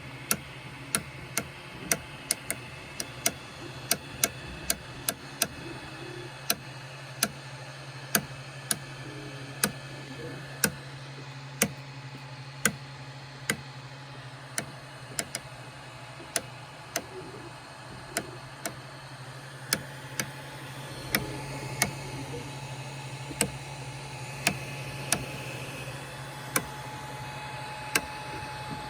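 Micro Swiss direct-drive extruder on an Ender 3 clicking repeatedly, sharp clicks at an uneven pace of about one to two a second, over the steady hum of the printer's motors and fans. The clicking comes with slowed extrusion while the hotend is hot, typical of the extruder skipping against resistance in the filament path.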